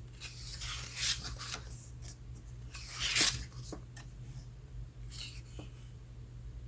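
Pages of a photo book being turned: a few short paper swishes and crinkles, the loudest about three seconds in. The stiff pages make a crunchy sound, a sign that the book hasn't been flipped through in a long time.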